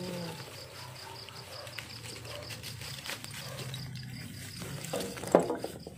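Charcoal lumps and a foil packet handled in a metal barbecue grill, with scattered clicks and a sharp knock about five seconds in that is the loudest sound. Insects chirp in rapid even pulses throughout over a low hum.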